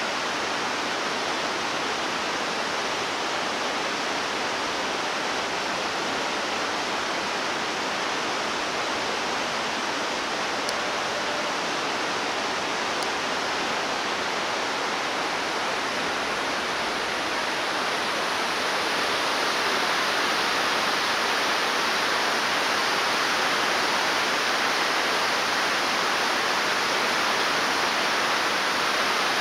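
Steady rushing of a mountain river, an even noise without breaks that grows a little louder about two-thirds of the way in.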